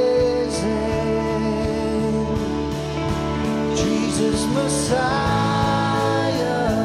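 Live contemporary worship song: a male vocalist sings over strummed acoustic guitar, bass and drums with cymbals. About five seconds in the vocal moves up into a new, higher sustained line as the song goes from the verse into the chorus.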